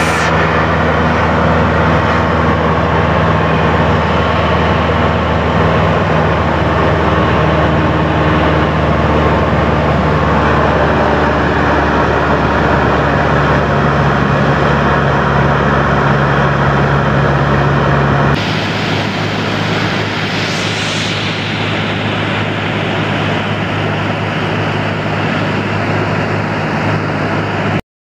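Single-engine light propeller plane's engine and propeller droning steadily in flight. The drone changes abruptly about two-thirds of the way in and cuts off suddenly just before the end.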